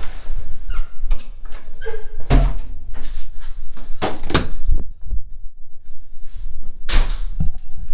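Doors being opened and shut, with a run of sharp thuds and clicks. The loudest come a little over two seconds in, around four seconds in and again near the end, over a low rumble.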